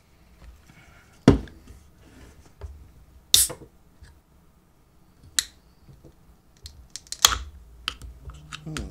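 Sharp clicks and snaps of a fingernail working at the pull tab of an aluminium can of carbonated soda, until the tab cracks the can open. There are four louder snaps a second or two apart, with a flurry of small ticks near the end.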